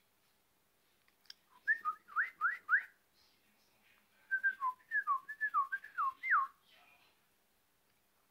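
Whistling in two runs of short, quick rising glides, the second run longer, each glide a clean single tone.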